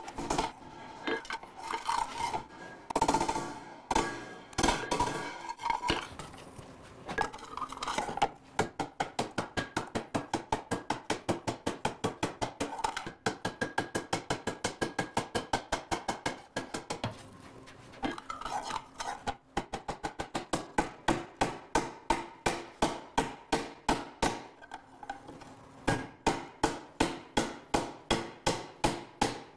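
Blacksmith's hammer striking a hot carbon steel skillet on a steel swage block, raising its sides. The blows are uneven at first and then settle into quick, steady ringing strikes, about four a second, broken by a short pause a little past halfway.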